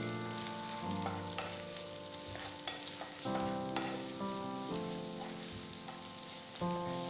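Chopped garlic, sliced onion and green chilli sizzling in hot oil while being stirred in a pan, with small scraping ticks. Soft background music chords change every second or two under the sizzle.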